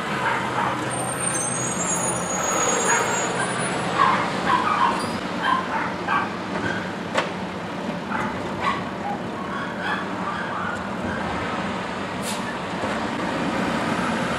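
Mack garbage truck's diesel engine running as the truck moves along the street, with a few knocks and a short hiss near the end.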